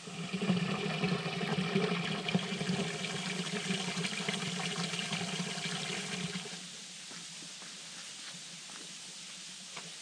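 A thin stream of water pouring off a sandstone rock into a small rock pool, splashing and gurgling steadily. It cuts off suddenly about six and a half seconds in, leaving a much quieter steady background.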